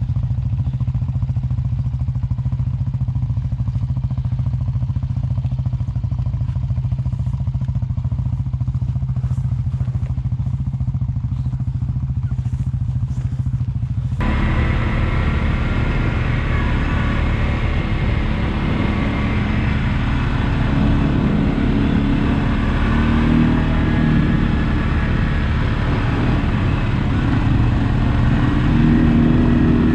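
ATV engines running. About halfway through, a dull low rumble changes suddenly to a fuller, brighter engine sound whose pitch wavers and climbs with revving, louder near the end.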